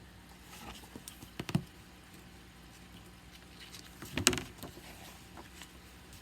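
Paper and handling noises from a picture book being handled and its page turned: a short cluster of rustles and knocks about a second and a half in, and a louder one a little past four seconds, over a faint steady hum.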